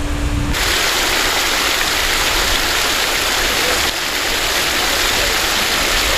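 Ornamental fountain's water jet splashing into its basin: a steady rushing hiss that starts suddenly about half a second in.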